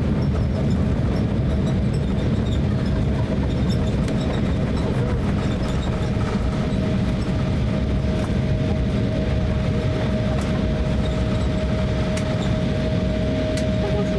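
Cabin noise of an Embraer E170 airliner in its landing rollout: a steady rumble of the landing gear rolling on the runway under the engine noise, with a steady whine that grows louder toward the end.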